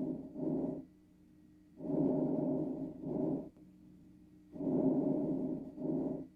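Recorded lung breath sounds as heard on auscultation, with about two and a half breathing cycles. Each cycle is a longer, muffled inspiration followed by a brief pause and a shorter expiration, repeating about every two and a half to three seconds over a faint steady hum.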